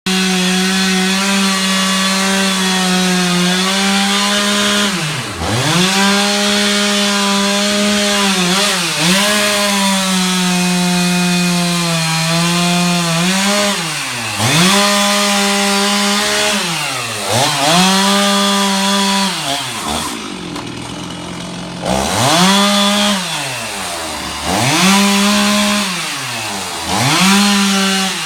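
Chainsaw running at high revs while cutting a fallen tree limb. Its pitch drops and climbs back again and again as the throttle is eased and squeezed. It settles to a lower speed for a couple of seconds about two-thirds through.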